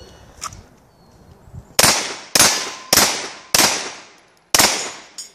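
Five handgun shots fired in quick succession at steel targets, about half a second apart with a slightly longer gap before the last. Each shot is a sharp crack that trails off in a short echo.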